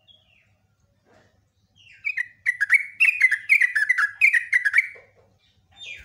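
Yellow-vented bulbul (trucukan) singing a rapid chattering phrase about three seconds long: a string of bubbly notes, each falling in pitch, about three a second. A short single call follows near the end.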